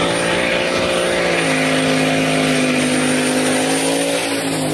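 Pickup truck doing a burnout: the engine is held at high revs with a steady note that shifts pitch about a second and a half in, over the hiss of its spinning rear tyres.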